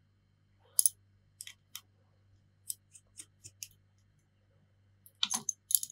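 Precision tri-point screwdriver working tiny Y-type screws out of an iPhone 7's metal bracket: a run of short, light metallic ticks and clicks, scattered at first and coming thicker near the end.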